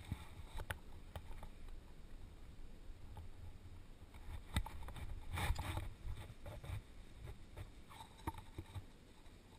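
Scrapes, scuffs and sharp knocks of a rappeller's feet and rope against a sandstone wall, over a low rumble on the microphone, with the loudest rustling scrape a little past halfway.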